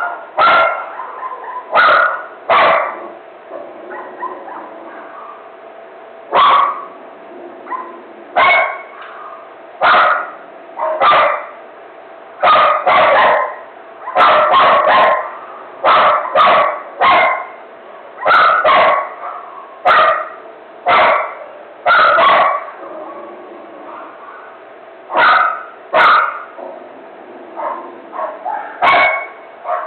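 A dog barking in a frenzy: sharp single barks and quick runs of two or three, about one a second, broken by a few pauses of several seconds.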